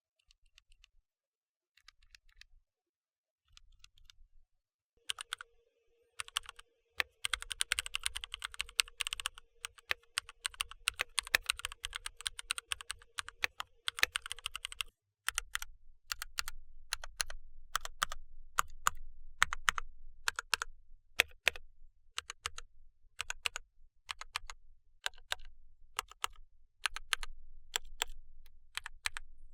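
Mechanical keyboard switches being typed on. First come a few faint keystrokes on Gateron Mint switches. From about five seconds in, Gateron Red linear switches are typed fast and continuously, with a faint steady hum underneath, until about halfway, then pressed as separate sharp keystrokes.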